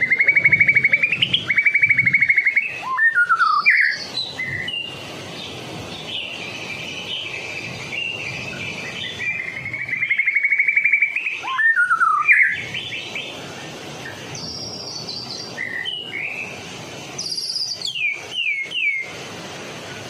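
White-rumped shama in full song, delivering varied phrases with short pauses: fast rattling trills, whistles that swoop downward, and high clear notes, ending in a quick run of falling slurred notes.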